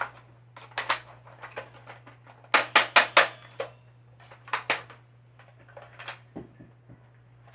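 Sharp plastic clicks and clacks from a Nerf blaster and its parts being handled, with a quick run of four loud clicks about two and a half seconds in and a pair a couple of seconds later.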